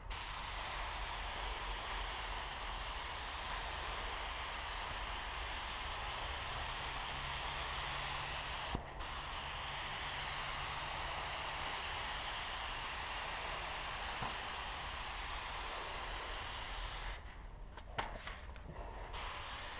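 Gravity-feed paint spray gun hissing steadily as it sprays paint, with the trigger let go briefly about nine seconds in and again for a couple of seconds near the end, where a click is heard. A low hum runs underneath.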